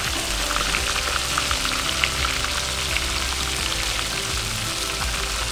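Panko-breaded fish fillets frying in a skillet of hot oil: a steady sizzle with frequent small crackles and pops.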